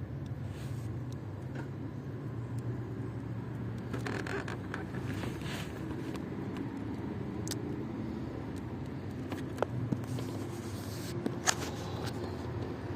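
Steady low mechanical hum, with a few sharp clicks and scrapes from metal test probes touching the pins of the control-unit connector.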